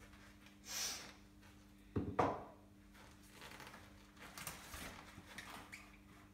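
Handling sounds from unpacking a new mountain bike: a short rustle about a second in, a sharp knock about two seconds in, then scattered rustling of paper and plastic packaging being pulled off the bike, over a faint steady hum.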